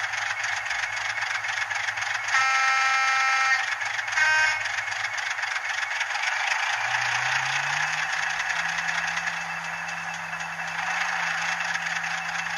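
Diesel locomotive sound from a DCC sound decoder played through a very small model-railway speaker, with little bass: engine running, a horn blast of over a second at about two seconds in, a short toot at about four seconds, then the engine pitch rising near seven seconds as it revs up.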